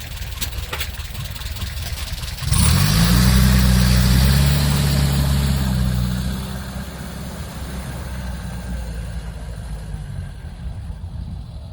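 Renault R10/R8 automatic's engine running. About two and a half seconds in it revs up and holds higher revs for a few seconds, then settles back to a steady idle.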